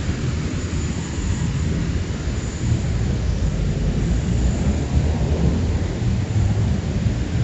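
Steady low rumble of road traffic passing on a wet street, with a faint hiss of tyres on the wet road.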